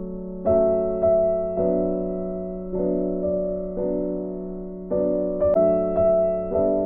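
Background music: a soft electric-piano or keyboard playing held chords, a new chord struck about once a second and fading between strikes.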